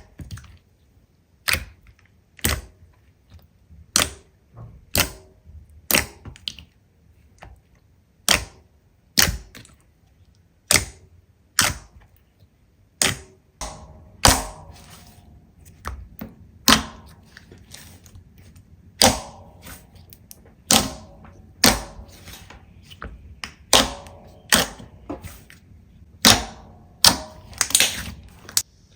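Slime being pressed and worked by hand, giving sharp popping clicks as air pockets burst, roughly one or two a second at an uneven pace.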